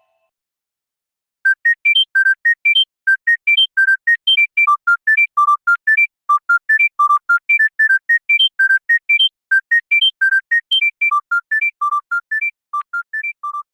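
A phone ringtone: a fast melody of short, clean beeping notes running up and down in arpeggios. It starts after about a second and a half of silence and gets quieter near the end.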